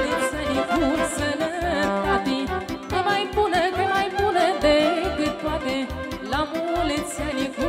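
Fiddle playing an ornamented folk hora melody with quick runs and trills, over a steady dance beat.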